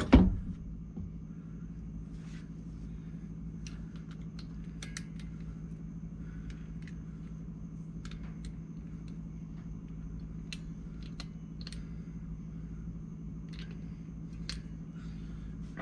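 A single sharp knock right at the start, then a steady low hum with scattered light clicks and taps.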